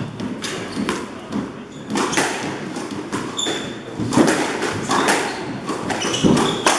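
Squash rally: the ball struck by racquets and hitting the court walls in a run of sharp smacks, about one a second, echoing in the court. Short high squeaks from shoes on the wooden floor come between the shots.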